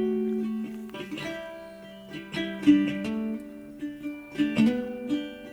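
Background music: a plucked string instrument, guitar or ukulele, picking single notes that ring on.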